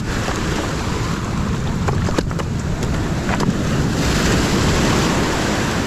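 Surf breaking and washing over a cobble beach, with wind buffeting the microphone as a low rumble. A few light clicks come through around the middle, and the wash of the waves swells about four seconds in.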